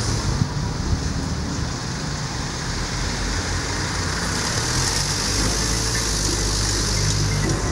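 Street traffic noise: a steady low rumble and hiss of road vehicles, swelling as a vehicle drives past about five seconds in.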